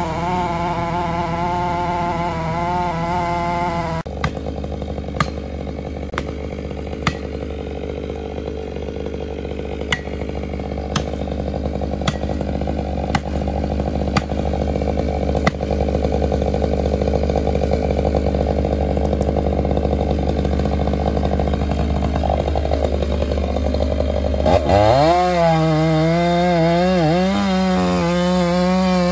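Chainsaw cutting into the base of a large standing cottonwood during tree felling: a steady running note with light clicks about once a second, then a stronger engine note that rises and falls from about 25 seconds in. For the first four seconds a different, wavering engine note is heard.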